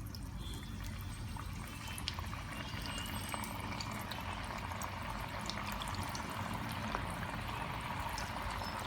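Potato-and-vegetable cutlets frying in hot oil in a pan: a steady sizzle with many small crackles, a little louder from about two seconds in.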